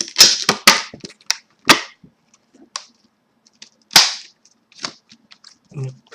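Retail packaging of a sync cable being pried and torn open: a quick run of sharp snaps and cracks in the first two seconds, then scattered cracks with one loud snap about four seconds in.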